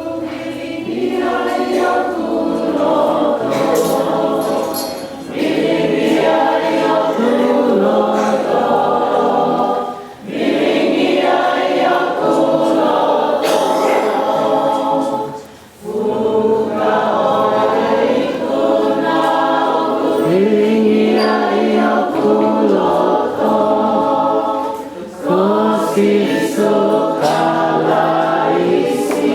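Gospel vocal group singing a song together in harmony, many voices at once, in phrases with brief breaks between them.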